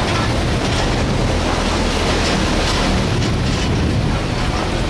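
Car driving slowly on a rough unpaved road, heard from inside the cabin: a steady engine drone under broad road and tyre noise.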